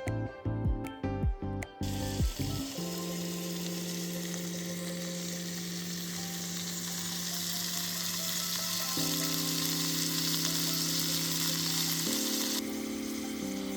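Food sizzling as it fries in a hot pan: a steady hiss that sets in about two seconds in and thins out near the end. Background music plays under it, plucked notes at first and then held chords.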